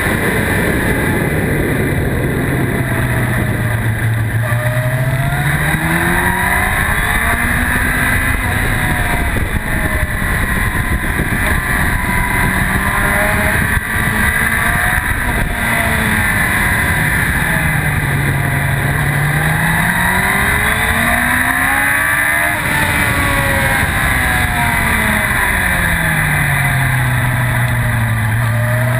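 2004 Yamaha YZF-R1's inline-four engine at racing speed, its revs repeatedly climbing under acceleration and dropping back on braking for corners.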